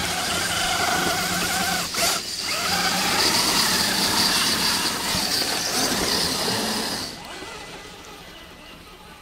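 Electric motors and geared drivetrains of Axial SCX10 radio-controlled crawlers whining as they drive past through snow, the pitch rising and falling with the throttle. The whine breaks off briefly about two seconds in and fades away about seven seconds in.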